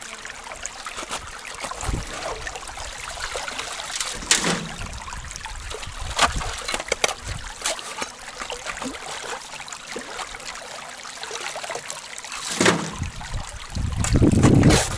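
Water trickling steadily, with scattered sharp knocks and a louder low thump near the end.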